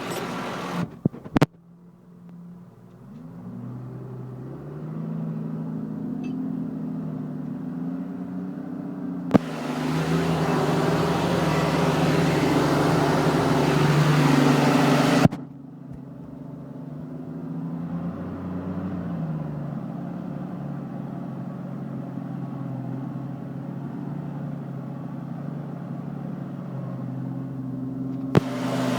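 New Holland TM130 tractor's diesel engine working under load as it pulls a four-furrow plough through wet clay. The engine note rises and falls, the sound gets louder through the middle stretch and drops back, and there are a few sharp clicks.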